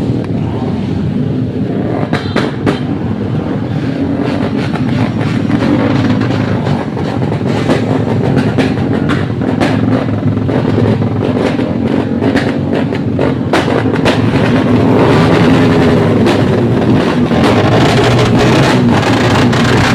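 Engine running with its exhaust popping and crackling in sharp, irregular cracks like firecrackers over a steady engine note.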